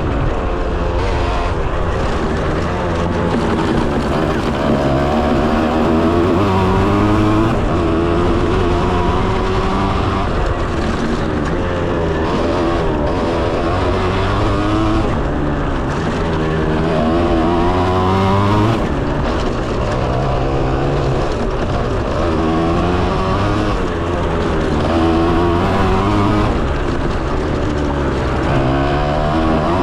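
Kawasaki KX125 two-stroke single-cylinder engine revving hard as the bike is ridden, its pitch climbing and dropping back again and again as the rider works the throttle and shifts gears, with one long climb and a sudden drop a little past the middle.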